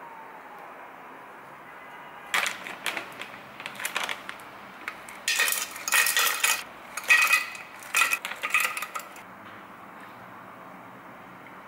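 Plastic bag of frozen berries rustling and crinkling as it is handled and opened, then hard frozen berries clattering and clinking into an empty glass jar in several short pours. The clatter stops a couple of seconds before the end.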